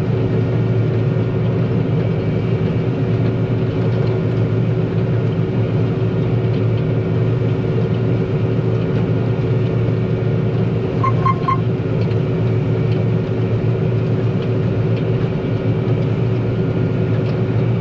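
John Deere combine harvester heard from inside the cab: a steady engine and machinery drone with a constant hum. About two-thirds of the way through, three quick electronic beeps sound from the cab.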